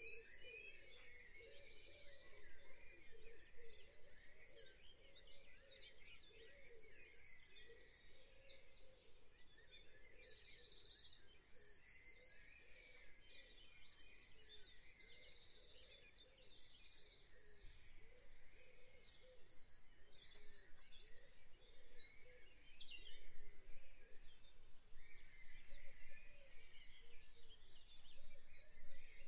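Songbirds singing in spring: one bird repeats a short, high, rapid trill every second or two while other birds chirp around it, all fairly faint.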